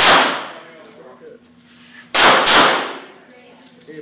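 Pistol shots with a long echo off the range's walls: one shot, then a quick pair about two seconds later.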